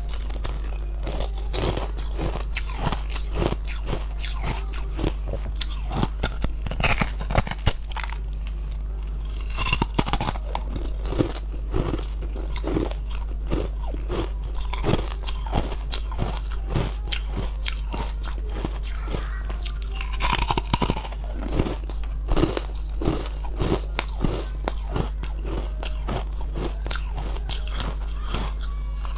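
Biting and chewing hard frozen red-coloured ice right at a clip-on microphone: irregular sharp cracks and crunches, a few to several a second, over a steady low hum.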